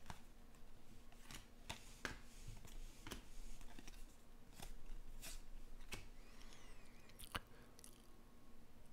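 Glossy baseball trading cards being flipped through by hand, one after another: faint flicks and slides of card against card, roughly one every half second to a second.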